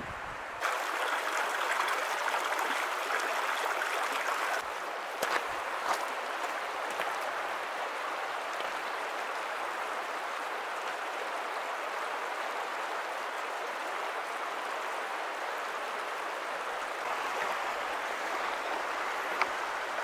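Shallow rocky creek running over stones: a steady rushing of water, a little quieter after about four and a half seconds.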